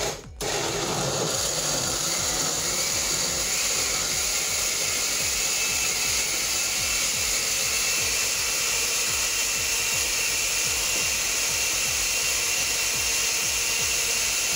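Electric countertop blender running at one steady speed, starting about half a second in.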